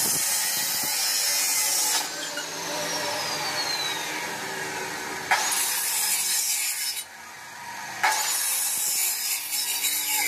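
Abrasive cut-off saw (chop saw) grinding through square steel tube, three cuts in a row: one at the start, one about five seconds in, one about eight seconds in. Between cuts the motor runs on with a falling whine.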